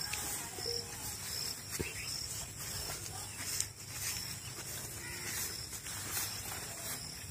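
Outdoor farmland ambience: faint animal and bird calls over a steady high hiss, with a couple of brief soft knocks.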